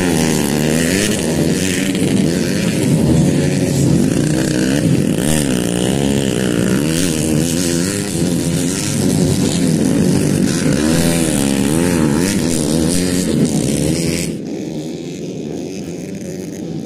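Several racing motorcycle engines on a dirt track, their pitch rising and falling with the throttle as the bikes accelerate out of corners and shift. About 14 seconds in the sound drops quieter and duller.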